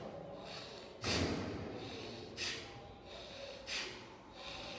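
A man breathing hard through his nose, forceful sniffing inhalations alternating with forceful exhalations, about one every second and a half. The strongest comes about a second in. This is a breathing drill with power on both the inhale and the exhale through the nose.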